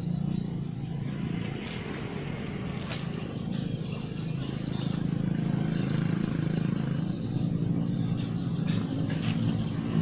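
Outdoor ambience: a steady low hum, with small high two-note bird chirps repeating every three seconds or so.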